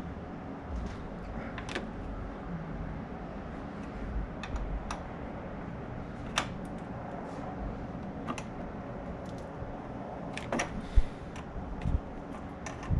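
Scattered light clicks and clinks of hand tools and small metal parts as bolts are undone in an engine bay, irregular and spaced out, with a few sharper ones about six seconds in and again near eleven seconds.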